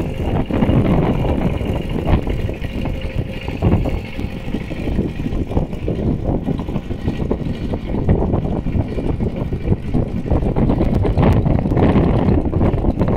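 Two-wheel walking tractor's engine running steadily as it pulls a harrow through flooded paddy mud, growing more distant, with some wind noise on the microphone.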